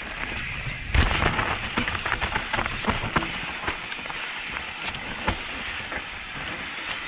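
Mountain bike descending fast over dry leaves, dirt, roots and stones: tyres crackling through the leaf litter and the bike rattling over the bumps, with a hard knock about a second in.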